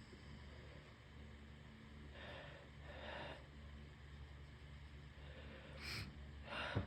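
Breathing and sniffing through a congested nose while trying to bring on a sneeze: two short noisy breaths about two seconds in, then a sharp sniff and a short snort near the end.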